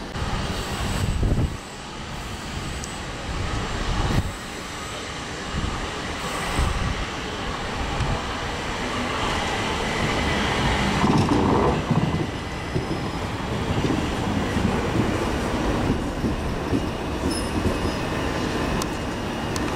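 Southeastern Electrostar electric multiple units running through the station, one pulling into the platform: steel wheels rumbling and clattering over the track, with a thin high wheel squeal, growing louder as the train comes alongside.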